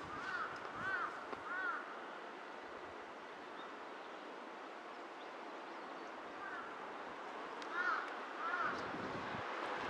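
A bird gives short, arched calls: a run of four in the first two seconds and three more near the end, over a steady background hiss.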